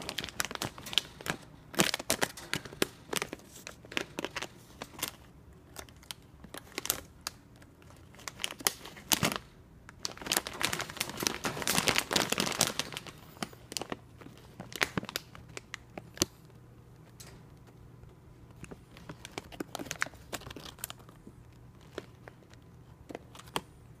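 Red plastic mesh bag of in-shell peanuts crinkling and rustling as it is jostled, with the shells rattling against each other in a run of sharp crackles. The crackling is densest about halfway through and thins to scattered clicks in the last third.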